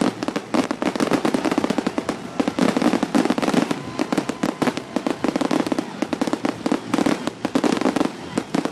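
Fireworks going off close by: a rapid, unbroken string of bangs and crackles from many shells bursting at once.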